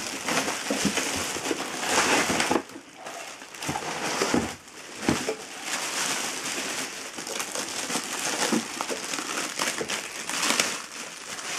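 Clear plastic wrapping bag crinkling and rustling as it is pulled off a drill press head, with a few dull bumps of the unit against its box.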